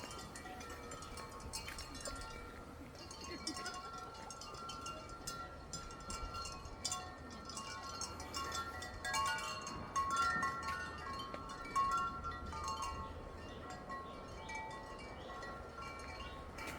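Many wind chimes ringing together in the breeze: irregular, overlapping clear tones, growing louder for a few seconds around the middle.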